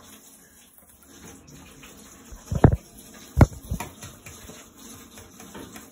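A few dull knocks in an otherwise quiet room: two loud ones under a second apart near the middle, then a softer one.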